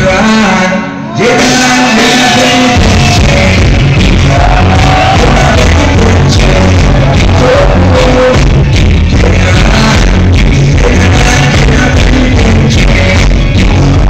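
Live reggae band playing with a singer, recorded very loud and distorted on a phone among the crowd. The bass line drops out briefly and comes back in about three seconds in.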